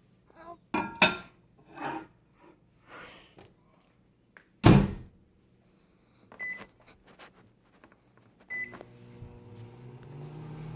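Samsung microwave oven being loaded: a few knocks and clicks, then the door shuts with a thump about halfway through. Two short keypad beeps follow, and near the end the oven starts running with a steady hum.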